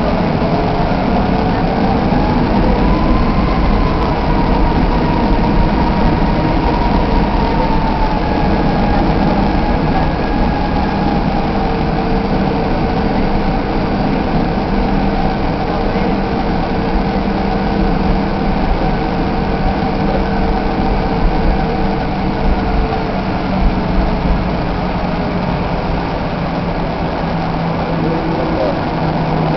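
Jet airliner engines heard inside the cabin while the plane taxis: a steady rumble and hum, with a turbine whine that rises over the first few seconds and then eases down.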